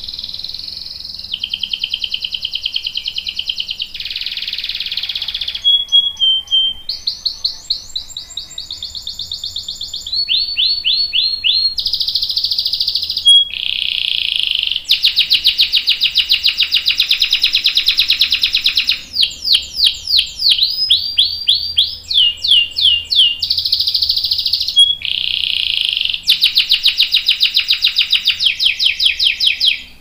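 Domestic canary singing a long, unbroken song of rapid rolling trills, each phrase of quickly repeated notes giving way to the next every second or two, with runs of fast sweeping notes between them.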